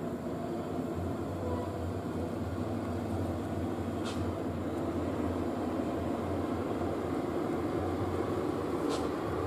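Diesel engine of a rock-laden Hino dump truck pulling steadily up a steep grade, growing slightly louder as the truck approaches.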